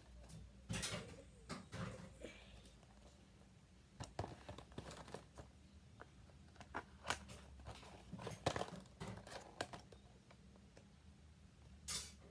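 A small cardboard model-kit box being handled and opened by hand: scattered faint taps, scrapes and rustles of cardboard and packaging.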